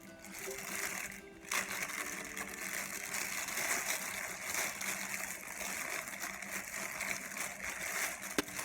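Packaging rustling and crinkling as camera box contents are handled, starting about one and a half seconds in, with a sharp click near the end.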